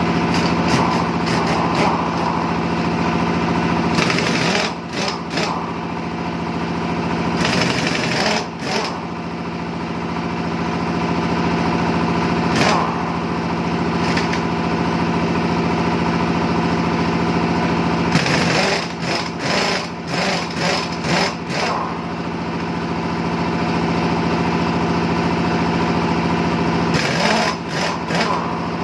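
A small engine runs steadily, and a pneumatic impact wrench rattles in bursts at four points, loosening or tightening the truck wheel's nuts.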